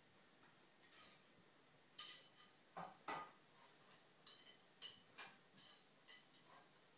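Faint, irregular clicks and scuffles, about a dozen in a few seconds, as a pet black rat (ship rat) wrestles with a hand on fabric.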